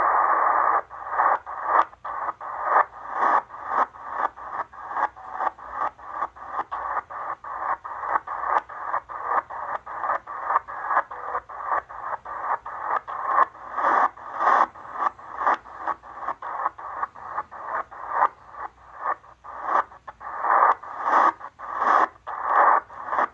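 Tecsun PL-330 shortwave receiver in upper sideband giving out empty band hiss, steady for the first second, then chopped by a brief mute at each 1 kHz tuning step as the knob is turned, about two steps a second. No station comes through, only noise.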